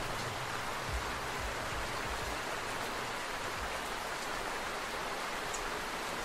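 Steady rain, an even hiss, with a few faint low thuds in the first couple of seconds.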